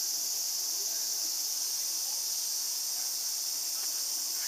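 A steady, high-pitched chorus of insects that keeps up without a break, with faint scattered sounds beneath it.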